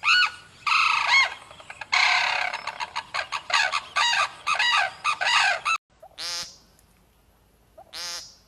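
A bird calling: a rapid run of loud, harsh calls, each rising and falling in pitch, for about six seconds. It stops abruptly, then two shorter rattling calls follow.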